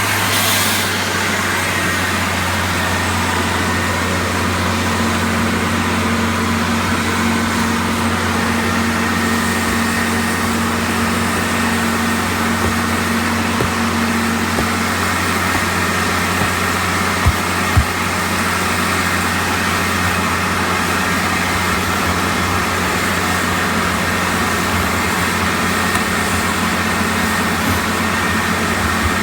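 Venturi-powered industrial vacuum pump running steadily: a constant low machine drone under a wide rushing hiss of air. Two short knocks stand out about halfway through.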